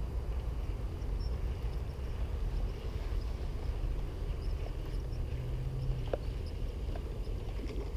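Baitcasting reel being cranked during a lure retrieve, its faint ticking heard under a steady low rumble of handling on a chest-mounted camera, with one sharp click about six seconds in.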